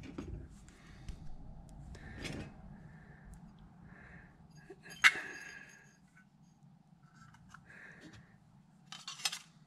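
Scattered light clicks and knocks of a small air compressor's metal cylinder head and valve plates being handled and set down on a wooden workbench, with one sharp knock about five seconds in and a few more clicks near the end.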